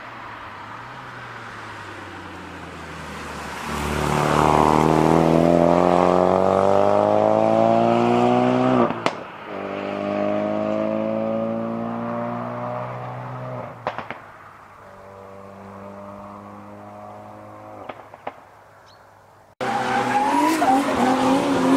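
Ford Focus RS MK3's turbocharged 2.3-litre four-cylinder with a modified exhaust, accelerating hard: the engine note rises, breaks at an upshift with a sharp crack from the exhaust, rises again to a second upshift and crack, then sits lower and fades with a few small pops. About two seconds before the end it cuts abruptly to a different sound with a wavering pitch.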